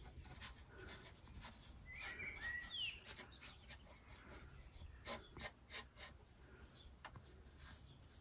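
Faint scratching and light tapping of a pen marking out lines on a painted board, with a short bird chirp about two seconds in.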